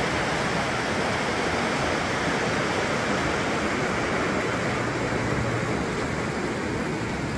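Stream water flowing: a steady rushing noise.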